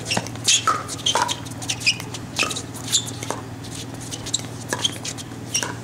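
Pickleball rally at the net: the sharp pops of paddles hitting the plastic ball in a quick exchange, mixed with sneakers squeaking on the hard court.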